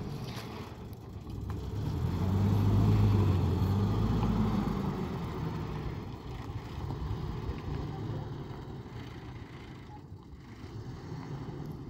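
Pickup truck engine pulling away on a dirt track. It is loudest a few seconds in, then fades steadily as the truck drives off.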